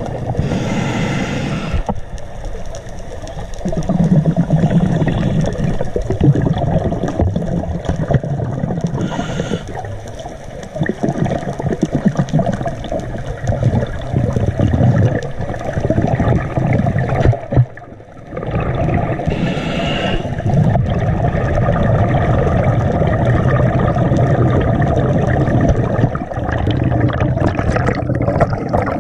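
Scuba diver breathing through a regulator underwater: three short hissing inhalations about ten seconds apart, each followed by a long, low rumble of exhaust bubbles.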